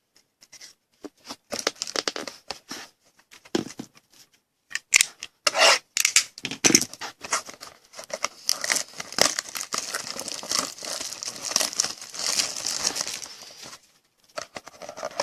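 Trading card packaging being torn open and crinkled, with cards and wrapper rustling in the hands: scattered rustles at first, then a denser stretch of crinkling and tearing in the second half.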